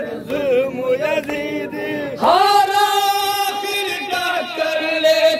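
Male voices chanting a noha, a Muharram lament, led by a voice sung into a handheld microphone. About two seconds in, the chant holds one long note for about two seconds, then returns to shorter sung phrases.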